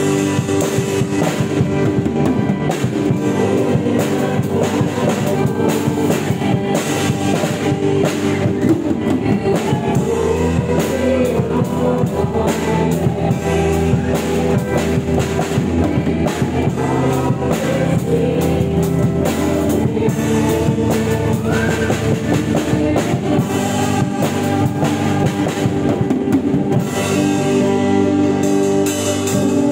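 Live worship band playing with an acoustic drum kit, its drums and cymbals beating a steady rock-style groove over sustained keyboard chords.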